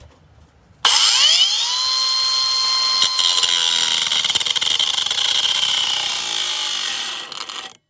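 Kobalt angle grinder with a cut-off wheel spinning up with a rising whine about a second in, then cutting through an overlong bolt with a steady high whine and grinding hiss. It stops abruptly just before the end.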